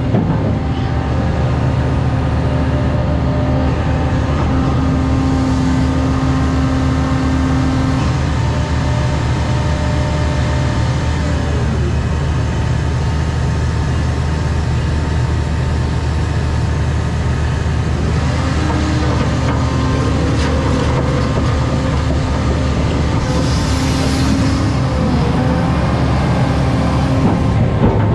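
Cat 335 Next Gen excavator's diesel engine running steadily under working load, its pitch dipping and then climbing again as the machine works.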